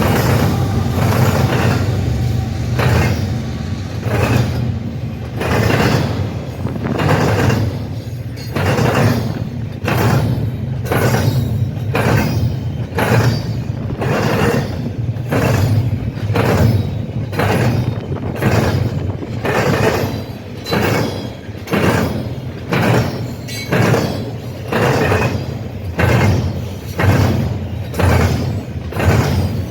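Train wheels clattering over a rail crossing diamond: a steady, regular clunk-clunk rhythm of about one and a half clunks a second over the low rumble of the passing train.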